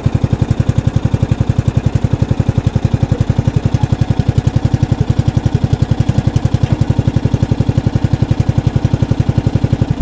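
A motor mower's 10 hp petrol engine chugging steadily in first gear, driving through its belt clutch, which now bites more strongly after an extra pulley was fitted. The beat is very even, about ten a second, and stops right at the end.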